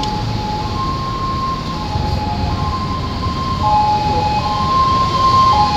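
A two-tone siren alternating between a high and a low note, each held about a second, over a steady low rumble; it grows louder near the end.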